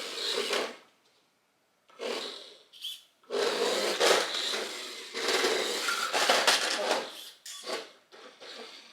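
WPL D12 remote control truck driven across a floor in short bursts of throttle: its small electric motor and gears whir and the tyres scrub, stopping and starting several times, with a brief pause about a second in.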